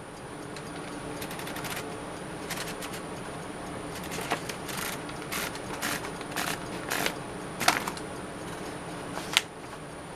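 Smith-Corona Silent-Super manual portable typewriter mechanism being worked: short runs of quick ratcheting clicks, then a series of separate sharp clacks, irregularly spaced, with one louder clack near the end.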